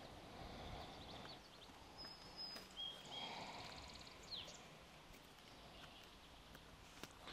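Faint outdoor ambience with a few short, high bird chirps and whistles, and soft rustles of thread being drawn through leather during hand-stitching.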